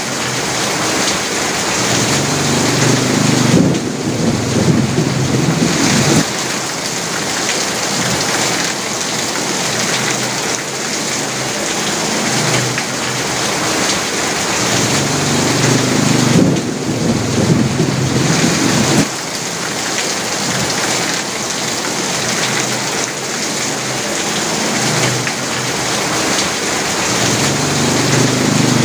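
Heavy rain drumming steadily on an asbestos (fibre-cement) roof. A low rumble swells under it about every 13 seconds and cuts off suddenly each time.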